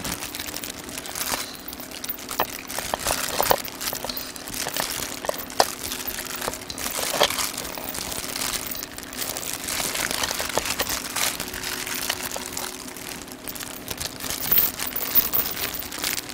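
Jindo dogs chewing pieces of boiled pork, an irregular run of crackling clicks and smacks, over a faint steady hum.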